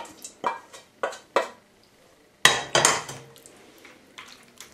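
Serving spoon and pans clinking and scraping as a thick seafood tomato sauce is spooned over spaghetti in a steel pot: a quick run of sharp clinks in the first second and a half, then a louder scraping clatter about two and a half seconds in.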